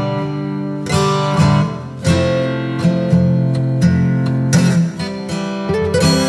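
Background music: an acoustic guitar strumming chords, with a new strum about once a second.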